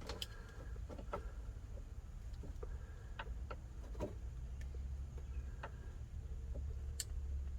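Scattered small clicks and ticks of hands working wires into a blower motor relay connector pigtail, over a low steady hum.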